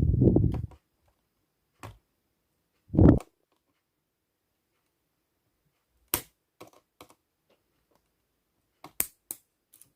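Handling noises from taking apart a Lenovo ThinkPad T420 laptop: two dull knocks, then a scatter of short, sharp plastic clicks.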